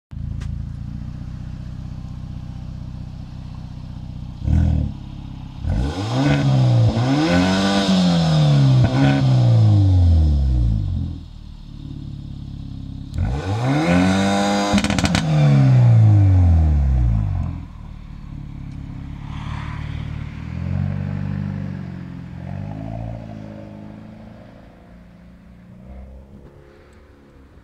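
Hyundai i30 N's turbocharged 2.0 T-GDI four-cylinder engine and exhaust idling, with a quick blip of the throttle about four seconds in, then two long revs, about six and thirteen seconds in, that climb and fall back to idle. After that it runs more quietly and fades away over the last ten seconds.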